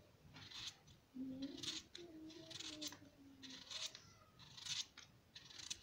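A regular kitchen knife slicing a peeled raw potato into paper-thin chips, each stroke a short scrape of the blade through the potato, about two slices a second.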